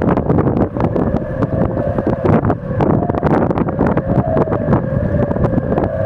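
Wind singing in the standing rigging (shrouds) of yachts hauled out ashore: a whistling tone with a fainter higher one above it, stepping up in pitch now and then with the gusts. Heavy gusting wind buffets the microphone.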